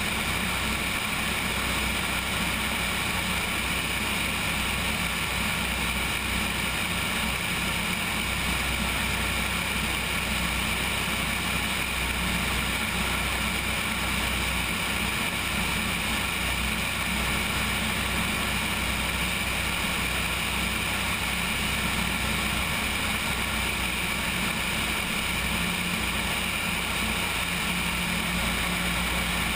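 Cessna 172's piston engine and propeller running steadily in flight, mixed with wind noise, heard from a camera mounted on the wing.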